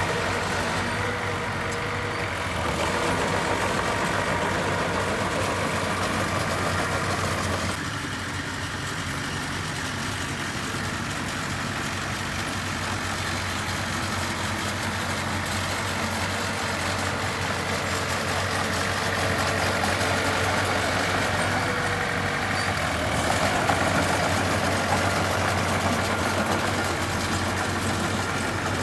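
Diesel engine of a heavy earthmoving machine running continuously, with a steady low drone. Its sound gets louder about 3 seconds in, drops back near 8 seconds, and rises again near 23 seconds as the load on it changes.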